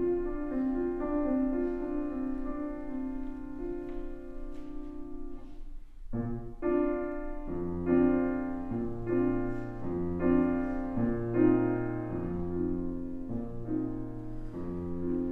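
Fazioli grand piano playing a slow solo passage of sustained chords over a bass line, with a brief pause about six seconds in.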